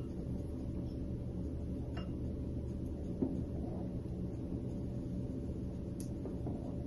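Steady low background hum with a few faint light clinks, about three, as a ladle scoops milk pudding from a steel pot into ceramic bowls.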